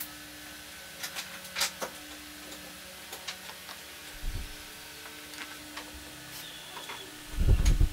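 Wooden jig parts being handled and fitted on a workbench: light clicks and knocks of wood on wood, a dull thud about four seconds in, and a louder low thump near the end, over a faint steady hum.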